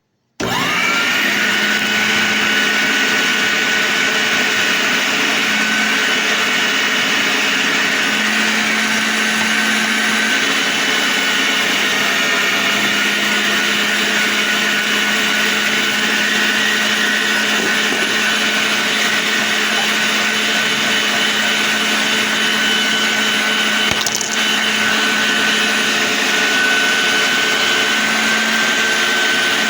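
Electric meat grinder motor switched on, its whine rising as it spins up about half a second in, then running steadily.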